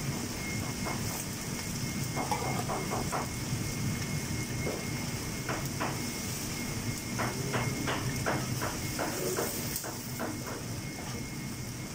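Steady hum and hiss of commercial kitchen ventilation and hot-holding equipment, with a faint high whine. Over it come clusters of sharp clicks and clatters as metal tongs strike and scrape the stainless steel pans while grilled chicken breasts are moved.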